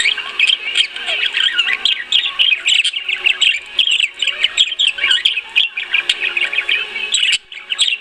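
Budgerigar warbling: a rapid, continuous run of chirps and chatter, with a brief pause near the end.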